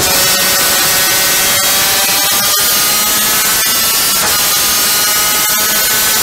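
A superkart's VM 250cc two-stroke engine running flat out at around 11,000 to 13,000 rpm, its pitch rising as the kart accelerates, with a few brief breaks in the sound.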